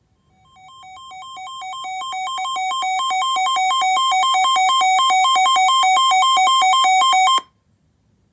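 Weather-alert radio alarm: two buzzy electronic tones alternating low-high a couple of times a second, the sign of a new warning coming in. It swells in over the first few seconds and cuts off abruptly near the end.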